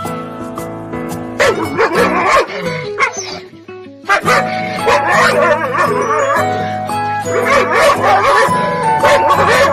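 A dog yipping and whining in quick, wavering high calls over background music, starting about a second and a half in and keeping on after a short pause.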